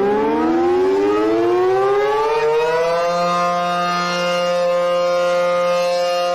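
Civil defense siren winding up, rising in pitch over the first three seconds and then holding a steady wail. It sounds the nuclear attack warning of a mock emergency alert.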